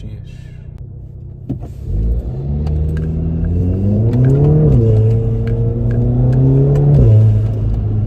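MK7 VW Golf R's EA888 turbocharged four-cylinder engine, fitted with an open cone induction kit, heard from inside the cabin as the car accelerates. The engine note rises for a couple of seconds, drops sharply at a gear change about halfway through, holds steady, then steps down again near the end.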